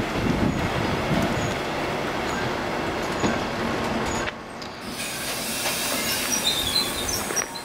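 Passenger coaches of a train rolling past on the rails, their wheels and running gear giving a dense rumble. About halfway through the rumble drops to a lighter hiss as the coaches draw away.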